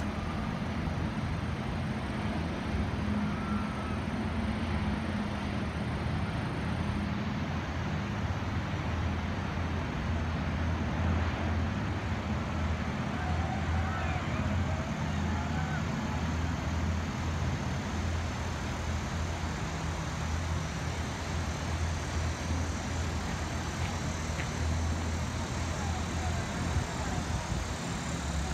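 Steady low engine drone over the even rushing of river rapids.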